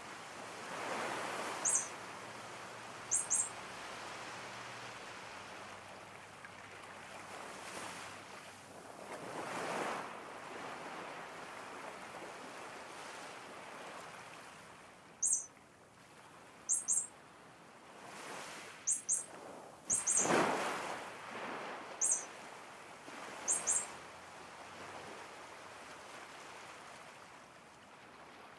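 Sea waves washing in slow surges, with short, high bird chirps, single or in pairs, heard several times.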